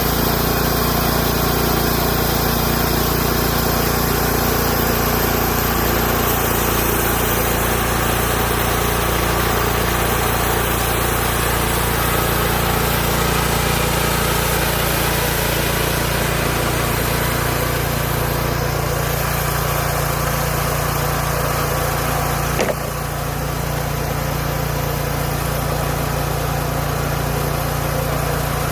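Small gasoline engine of a Hudson Homesteader 30 band sawmill running steadily. A sharp click comes a little over 22 seconds in, after which the sound is slightly quieter.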